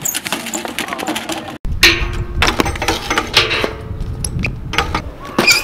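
BMX bike riding on concrete: tyres rolling with frequent clicks, knocks and rattles from the bike. There is a short break about one and a half seconds in, then a sharp loud knock.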